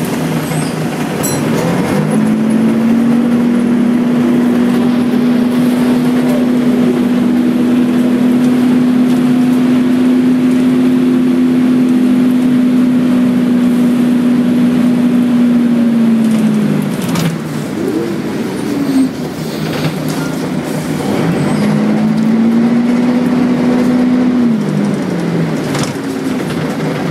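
Volvo B10BLE bus's six-cylinder diesel engine heard from inside the cabin. Its pitch climbs and holds a steady drone for over ten seconds, then the revs fall away. It pulls up again for a few seconds and eases off near the end, with a couple of short knocks from the bus body.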